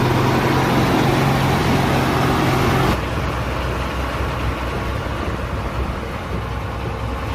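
Hino diesel truck engine running, a steady hum with a tone over it; about three seconds in the sound changes abruptly to a lower, rougher rumble. This is the noise the truck is being checked for.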